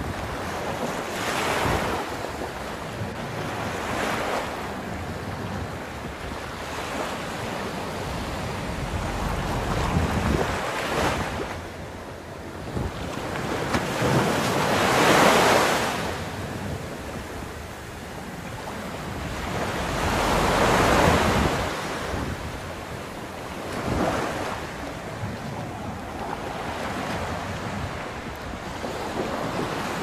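Sea surf breaking on a sandy beach, one wave after another washing in every few seconds, the loudest about halfway through and again about two-thirds in. Wind rumbles on the microphone underneath.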